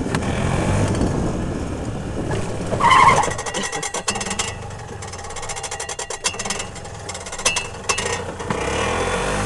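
Golf cart driving over grass, its running noise steady at first. About three seconds in there is a brief loud high-pitched sound, then a quieter stretch with a run of rapid clicks and rattles before the steady running noise comes back near the end.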